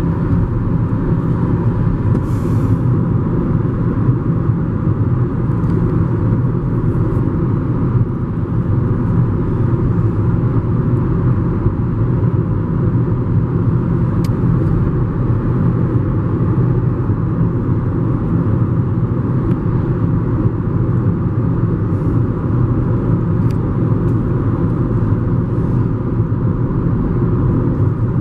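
Steady low rumble of road and engine noise inside a car cabin driving at speed on a motorway.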